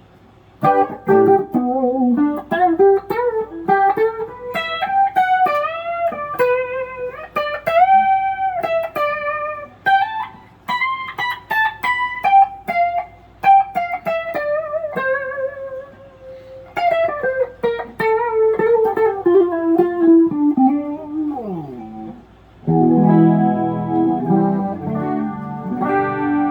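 Kiesel Crescent electric guitar with Kiesel Polarity active pickups, played through a Kemper amp profiler in a clean tone: a single-note melodic lick with string bends and a slide down near the end, then chords ringing out for the last few seconds.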